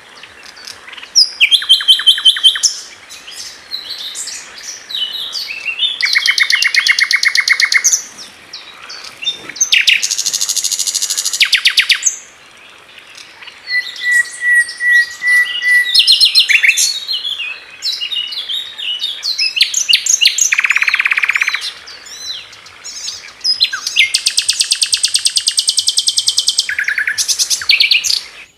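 Common nightingale singing loudly: a string of varied phrases broken by short pauses. Several phrases are fast rattling runs of repeated notes, and one about halfway through is a thin drawn-out note.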